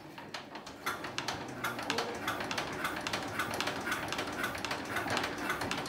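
Small single-cylinder stationary engine being hand-cranked, giving a rapid, steady clatter that starts about a second in.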